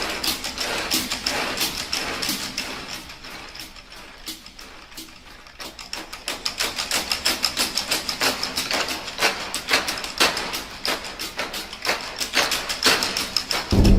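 Rapid mechanical clicking and ticking, like a ratchet or small gears, quieter briefly in the middle and then quickening into a dense run of clicks. Near the end a heavy low thumping cuts in.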